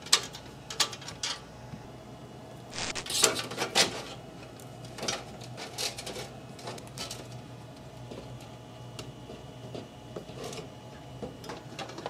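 Scattered clicks and knocks of a PC power supply and its modular cables being handled and fitted into a small metal computer case, loudest about three seconds in, over a faint steady low hum.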